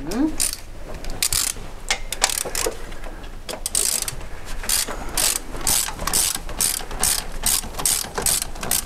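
Socket ratchet wrench clicking in a steady run of short bursts, about two a second, as a long bolt is backed out.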